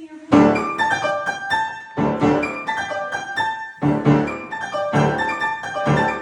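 Piano playing a simple tune in short phrases of struck notes, with brief pauses between phrases about every two seconds.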